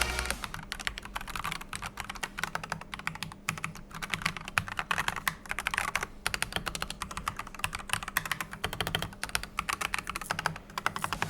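Typing on an AKKO 5108B Plus mechanical keyboard: rapid, continuous keystroke clicks and clacks, several per second, with brief lulls.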